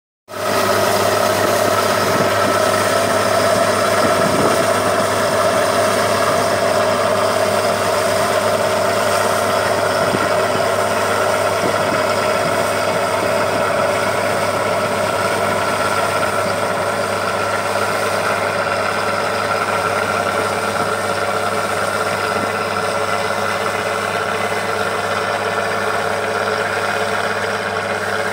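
Bizon combine harvester's diesel engine and threshing machinery running steadily while harvesting oats, a constant mechanical hum that grows slightly fainter as the machine moves away.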